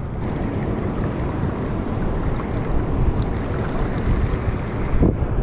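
Steady rushing of water pouring through a spillway, with wind buffeting the microphone.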